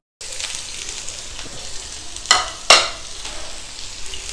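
Sliced onions sizzling in hot coconut oil in a non-stick frying pan, with two sharp knocks a little over two seconds in, about half a second apart.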